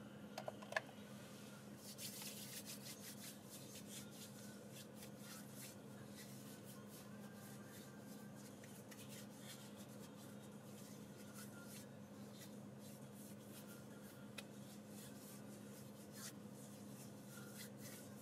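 Very faint steady hum inside a moving car, with a few small clicks just under a second in and light rubbing and rustling noises.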